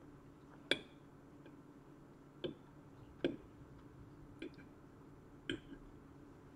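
Metal fork clicking against a plate while pasta is eaten, five short sharp clicks a second or so apart, over a faint steady room hum.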